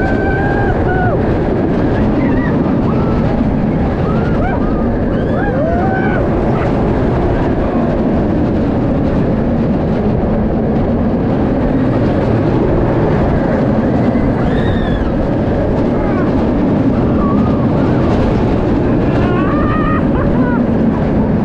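Georgia Scorcher steel stand-up roller coaster train in motion, heard from the seat: a steady, loud rush of wind and wheel noise on the track. Riders let out short yells several times, near the start, a few seconds in, about halfway and near the end.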